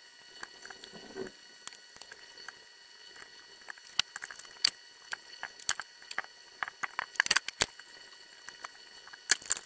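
Scattered light clicks and clinks of small hand tools and electrolytic capacitors being handled while new capacitors are fitted to a circuit board, busier in the second half, over a faint steady high whine.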